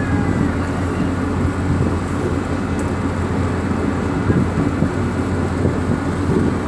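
A ferry's engines running with a steady low rumble.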